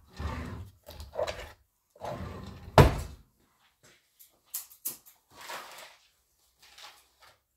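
Rustling and knocking handling noises close to the microphone, with one sharp, loud thump about three seconds in, then fainter scattered rustles and small clicks.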